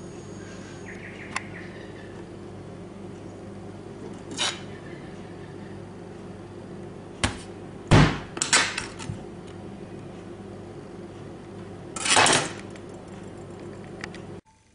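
A steady low hum with a series of knocks and clattering impacts over it, the loudest cluster about eight seconds in and a longer noisy clatter near twelve seconds. The hum cuts off abruptly just before the end.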